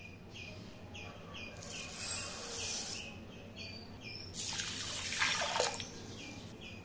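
Tap water running into a glass bowl of rice for about a second and a half past the middle, with a shorter, softer rush of water earlier. A small bird chirps over it again and again, about two short calls a second.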